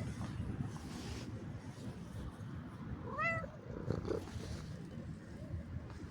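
A domestic cat meows once about three seconds in: a short call that rises and then falls in pitch, over steady low background noise.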